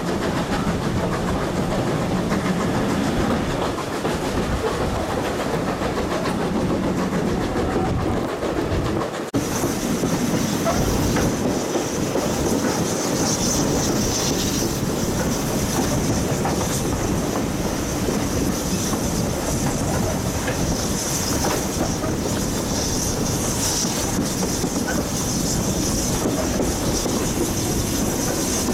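A train running along the track, its wheels clicking over the rail joints. About nine seconds in the sound changes abruptly, and from then on a high-pitched whine sits over the running noise.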